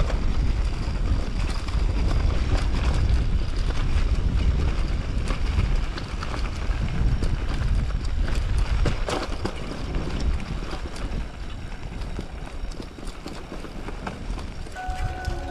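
Wind buffeting the microphone, with rattling and clicking from a mountain bike riding over a rough trail. Background music comes in near the end.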